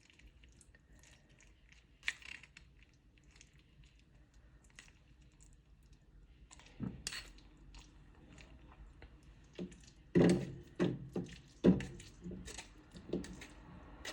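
Scattered light clicks and knocks of kitchenware being handled as honey-soaked onion pieces are scooped out of a strainer into a bowl, with a run of louder knocks from about ten to twelve seconds in.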